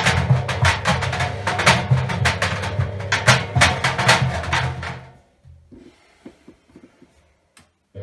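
Tennis balls thudding and bouncing irregularly against the steel drum of a front-loading washing machine as it tumbles, over the low hum of the machine. About five seconds in the drum stops turning and the thuds die away to a few faint knocks.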